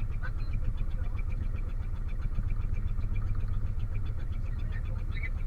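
A boat's engine running steadily at idle, with a rapid, even ticking pulse over a low hum.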